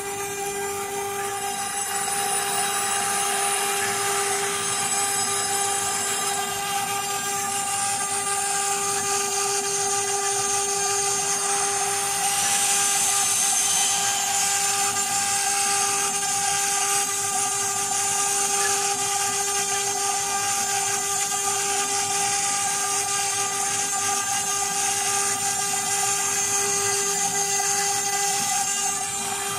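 A 6090 CNC router engraving a board: the spindle runs with a steady high-pitched whine while the engraving bit cuts, adding a hiss that grows louder about two seconds in.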